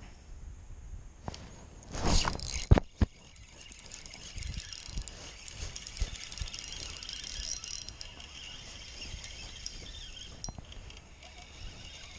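Spinning reel being cranked, a faint fast ticking whirr that runs for several seconds. About two seconds in there is a loud burst of handling noise with two sharp knocks.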